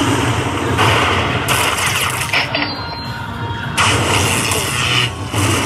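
Wild Chico Lightning slot machine's win sound effects: three bursts of hissing, crackling noise about a second long each, with rougher rattling sound between them, as the win total counts up.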